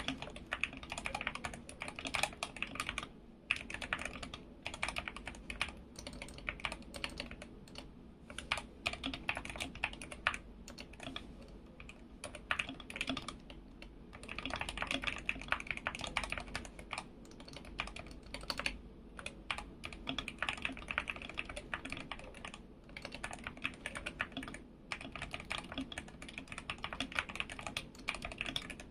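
Continuous fast typing on an SK61 mechanical keyboard with lubed Gateron Optical Silver linear switches: a dense stream of keystroke clacks in bursts, with brief pauses a few times.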